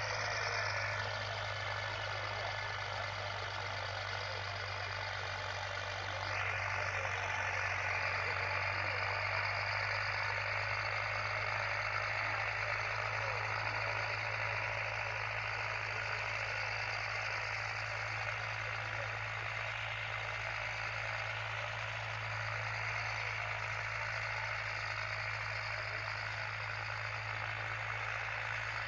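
Diesel tractor engine running steadily under load while pulling disc harrows, a constant low engine note under a broad rushing noise.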